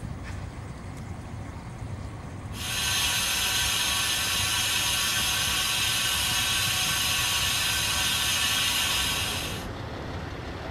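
Liquid nitrogen tanker venting nitrogen gas: a loud, steady hiss that starts about two and a half seconds in and stops abruptly about a second before the end.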